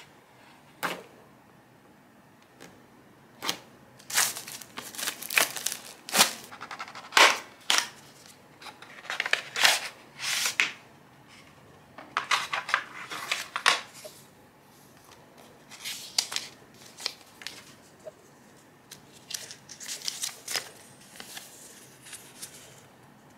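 Unboxing handling sounds of a small cardboard product box: scissors snipping its seal, then the box, the tray and a folded paper leaflet being handled and opened out. Sharp clicks, snips and rustles come in bursts of a second or two, with quiet gaps between.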